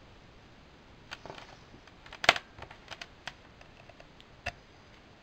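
Small plastic clicks and taps of handling a Kodak PlaySport Zx3 camcorder and pushing a cable plug into its port, with the sharpest click about two seconds in and another near the end.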